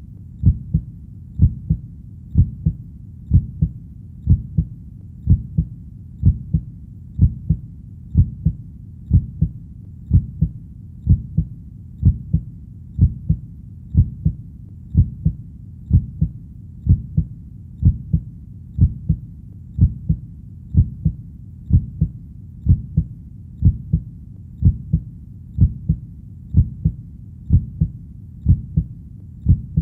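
Heartbeat, a steady lub-dub of paired low thuds at about one beat a second, even in pace and level.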